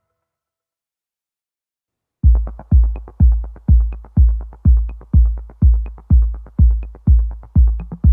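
Silence, then about two seconds in an electronic dance track starts. It has a heavy bass kick drum hitting about twice a second, with a faint high tick on some beats.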